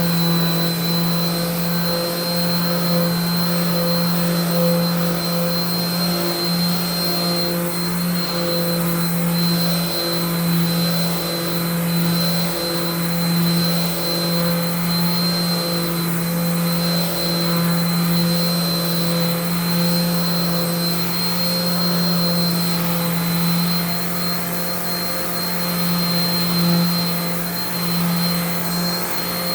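Electric sander running steadily against cured epoxy pour fill, a low hum with a high whine over it, the sound rising and falling slightly about once a second.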